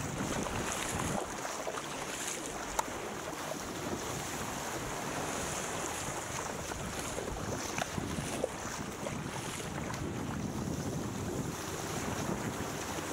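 Wind buffeting the microphone over open-sea water rushing and splashing along a paddled surfski's hull, with a few short knocks.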